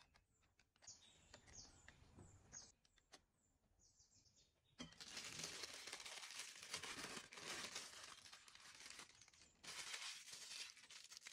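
Faint crinkling of a thin plastic piping bag as hands gather and twist its top closed, starting about five seconds in, after a few soft ticks and taps as batter is spooned into it.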